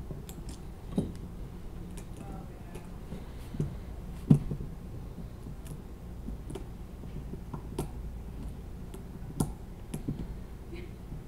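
Small clicks and taps of Librem 5 smartphone parts being handled and fitted back together, scattered and irregular, with the sharpest knock about four seconds in.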